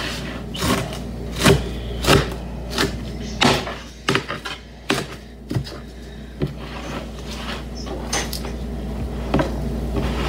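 Knife chopping romaine lettuce on a thin plastic cutting board: a string of sharp, irregular knocks, roughly one every half second to second, growing sparser in the second half.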